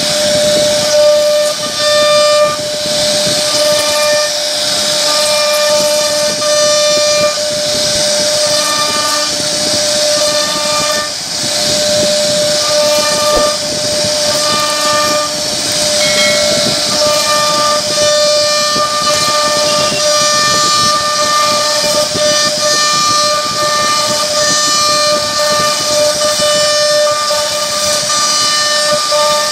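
CNC router spindle whining as its bit carves a wooden door panel, over the steady hiss of the cut. The whine fades and returns every second or so as the bit moves through the wood.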